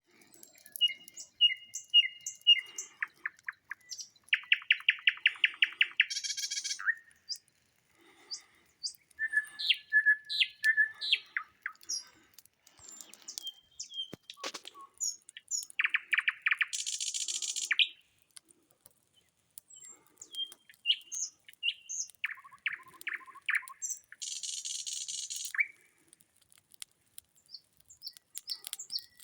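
Nightingale singing loudly in varied phrases: fast runs of repeated notes, sharp whistles and harsh buzzing rattles, with short pauses between phrases.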